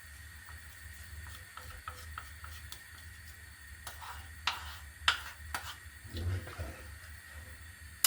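A spatula stirring milk and custard paste in a saucepan, with scattered light scrapes and taps against the pan and a few louder knocks around the middle.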